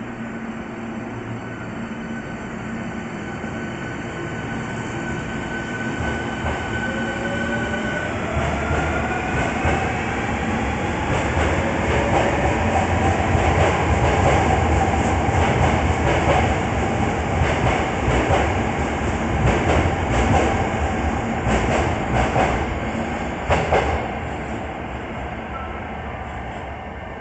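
Hankyu 1300 series electric train pulling out of an underground station. The motors' whine climbs in pitch as it accelerates, the wheels clatter over rail joints as the cars pass, and the sound fades near the end as the train leaves down the tunnel.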